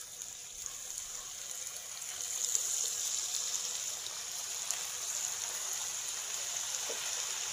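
Chicken pieces sizzling as they are dropped one by one into very hot oil for deep-frying, a steady hiss that grows a little louder about two seconds in as more pieces go in.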